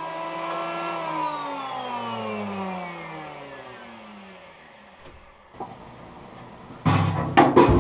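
Jointer's electric motor and cutterhead running steadily, then switched off and coasting down, its pitch falling steadily over about four seconds. A few sharp knocks, like boards being handled, near the end.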